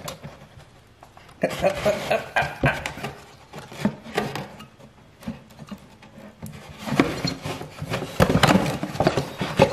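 Handling noise from a small Honda GX31 four-stroke engine's finned cylinder and crankcase being turned over by hand: irregular clicks, knocks and rubbing of metal parts against each other and against cardboard. Quiet for about the first second, busier and louder over the last three seconds.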